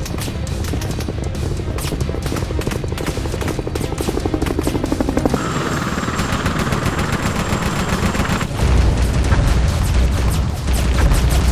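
A sound-designed battle soundtrack: rapid automatic gunfire over background music. From about five to eight seconds in there is a rushing noise, and from about eight and a half seconds a deep, heavy rumble of explosions takes over and is the loudest part.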